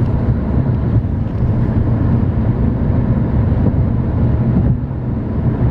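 Steady low rumble of a car cruising at freeway speed, the road and engine noise heard from inside the cabin.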